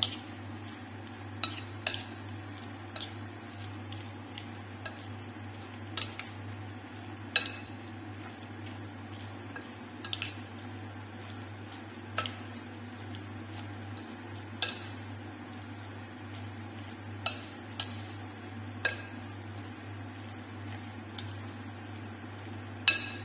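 Metal utensil knocking against a glass mixing bowl every second or two while stirring a chunky potato, egg and cheese mixture, with a steady low hum underneath.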